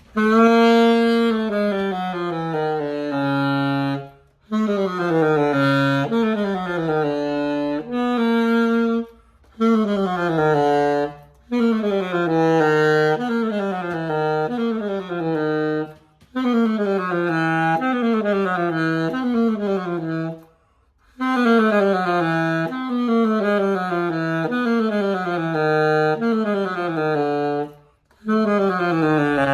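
Keilwerth SX90 Series 2 saxophone played solo as a post-service play test, freshly stripped, cleaned, re-padded and regulated. It plays phrases of quick stepwise runs that mostly fall from the middle of the range down to the low notes, with short breath pauses between phrases.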